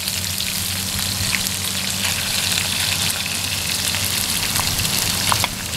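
Rat meat frying in hot oil in a pan: a dense, steady crackling sizzle with a few sharp pops of spattering oil, over a low steady hum.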